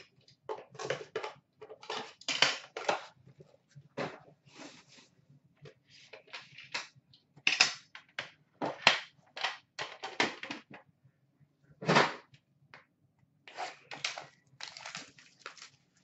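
Hands opening a sealed trading-card box: a run of short rustles, crackles and scrapes from the wrapper and cardboard as it is handled and pulled open.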